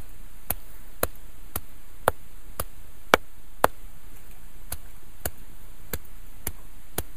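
A hand-held stone pounding green chillies into a paste, striking at a steady rhythm of about two blows a second, a few of them harder.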